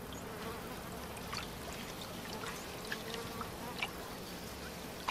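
Quiet swamp ambience: a steady hiss with a few faint, scattered chirps or clicks.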